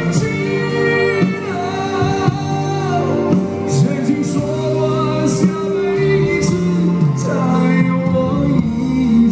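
Man singing a pop song live into a microphone over band accompaniment, amplified through an Ashley line-array PA system.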